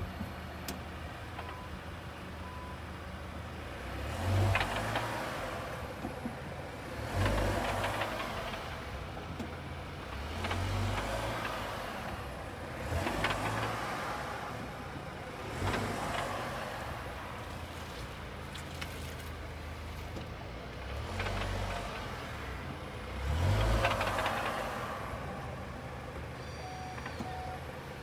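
A second-generation Volkswagen Tiguan making the strange knock its owner is chasing: a low thud with a short rush of noise, repeating about every two and a half to three seconds over a steady background hum.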